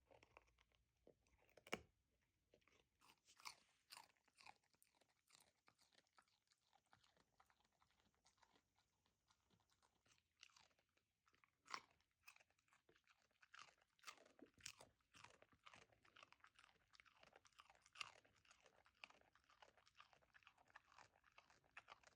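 A dachshund chewing: a run of irregular crunches and clicks, several a second, with a few louder crunches standing out.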